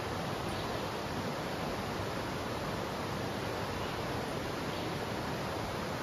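Steady, even rush of flowing water, with no separate splashes or other events.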